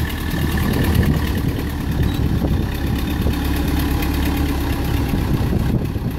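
Rough-terrain forklift's engine running steadily as the forklift pushes a white SUV through floodwater.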